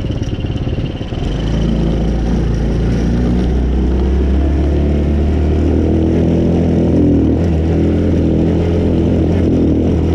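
Small single-cylinder four-stroke engine of a 125cc Chinese ATV. It runs at low revs at first, then about a second in picks up to a higher, steady speed under load, its pitch creeping slowly upward as it pulls. It is running smoothly with plenty of pep on a freshly cleaned carburettor and a new spark plug.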